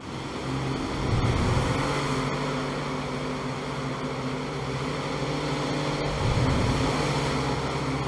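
Small motorboat's engine running steadily, over the wash of breaking surf.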